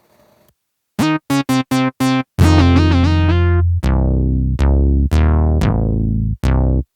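Waldorf Quantum synthesizer playing a Moog-style bass preset. First come four short, clipped notes and a held note that shifts in pitch. Then come several long, deep bass notes, each starting bright and quickly turning duller as the filter closes.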